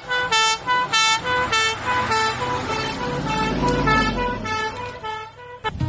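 Two-tone siren of a Dennis RS fire engine alternating quickly between two notes as the truck drives past. The rumble of its diesel engine swells in the middle while the siren fades, and both stop shortly before the end.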